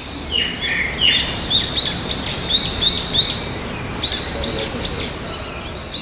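Songbirds chirping and singing in a forest: quick bright chirps, a run of short repeated notes and fast upward-sweeping whistles over a steady background hiss.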